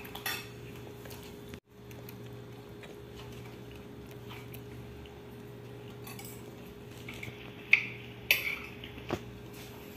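Tableware clinking during a meal: a few light knocks in the last few seconds, over a steady low hum.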